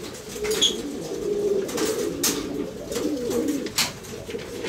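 Many Cuban buchón pigeons cooing at once in a loft, a steady overlapping murmur of low warbling coos. A few short, sharp sounds break in during it.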